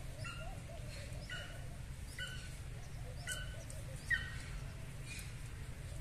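An animal giving short, sharp calls about once a second, one a little louder just after four seconds in, over a steady low hum.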